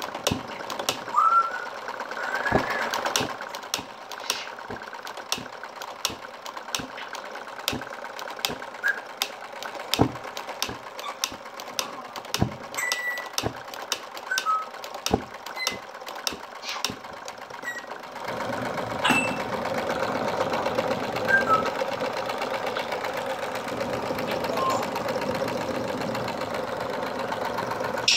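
Small four-cylinder live steam engine running, with sharp knocks about once a second and fainter ticks between. About two-thirds of the way in a steady hiss joins and the sound gets louder.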